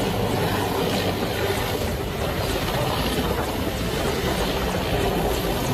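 Mi-17 twin-turbine military helicopter hovering low, its rotor and engines running with a steady, loud noise.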